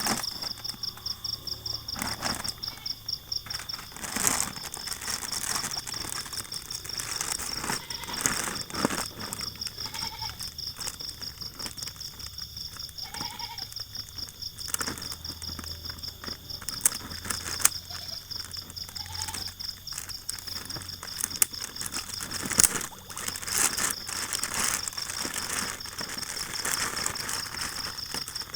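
An insect trilling steadily in a fast, even pulse, with irregular clicks, knocks and rustling on top.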